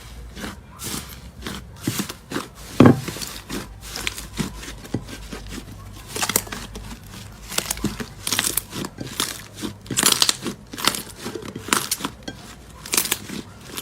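Slime being squeezed and pressed by hand, making an irregular run of short pops, a few a second. One louder pop comes about three seconds in.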